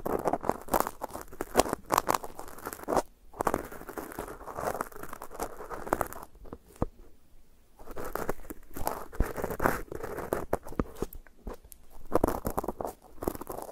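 Fingertips rubbing and scratching directly on a Zoom H6 recorder's XY microphone capsule, giving a close, crackly handling noise of many small scrapes and clicks that stands in for an ear massage. It eases off briefly about three seconds in and again around the middle.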